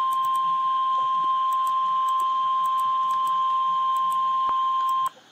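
NOAA Weather Radio warning alarm tone: a single steady, loud, high beep just above 1 kHz (the 1050 Hz alert tone) that announces a tornado warning. It cuts off sharply about five seconds in, leaving faint radio hiss.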